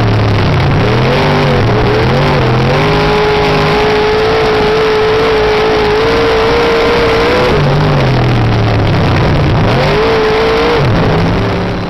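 Race car engines running hard, their pitch rising and falling as they accelerate and lift off, with one engine held at a steady pitch for several seconds in the middle. The sound fades a little near the end.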